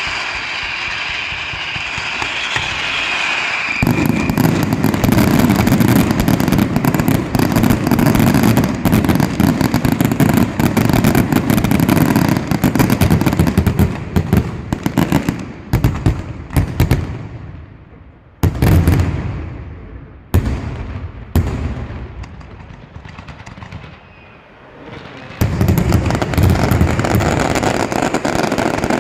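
Daytime fireworks barrage. A whistling shriek, then from about four seconds in a dense run of rapid crackling bangs. Later it thins to a few separate bangs with short lulls and picks up again near the end.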